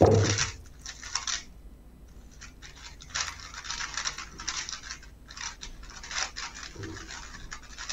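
3x3 speedcubes clicking and clattering as they are handled and turned, in several short runs with quiet gaps between. A soft knock comes right at the start.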